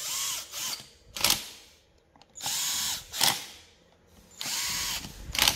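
Power screwdriver driving screws, running in short bursts: three spells of about half a second of whirring, each followed by a shorter, louder burst, as a Stihl 026 chainsaw is screwed back together.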